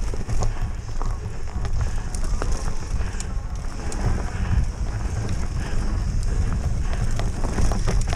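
Foes Mutz fat bike rolling fast over a dirt singletrack: a steady low rumble from the tyres and ground, with frequent clicks and rattles from the bike over bumps and roots.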